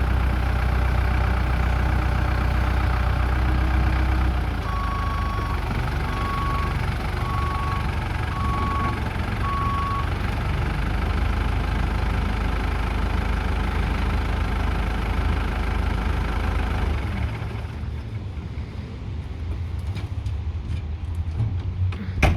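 New Holland LB75 backhoe loader's diesel engine running steadily, with its back-up alarm beeping five times at an even pace a few seconds in. The engine note drops about four seconds in and falls away further near the end.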